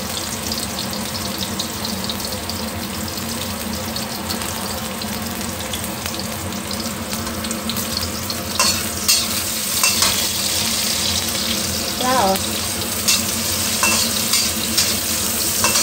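Sliced shallots and garlic sizzling in hot oil in a wok. From about halfway through, a metal slotted spatula scrapes and knocks against the wok as they are stirred.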